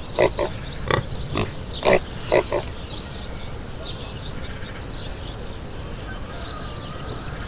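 Pig grunting: a quick run of about seven short grunts in the first two and a half seconds, then quieter. Small birds chirp faintly in the background.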